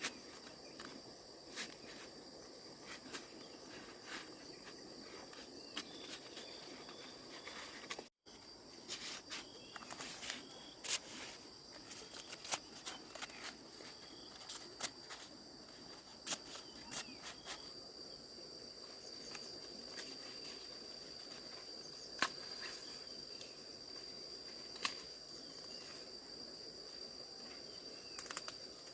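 Insects, crickets or cicadas, singing a steady high-pitched drone, with scattered sharp cracks and rustles throughout. The sound cuts out completely for a moment about eight seconds in.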